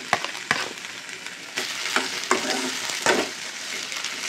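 Tindora and green chillies sizzling in oil in a metal pan as tomato pieces are added and stirred in, with sharp knocks and scrapes of a metal utensil against the pan. The sizzle gets louder about a second and a half in.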